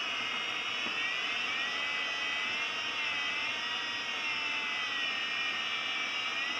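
Airflow rushing past the cockpit of a Schleicher ASK 23b glider: a steady hiss with a whistling tone that slowly wavers up and down in pitch.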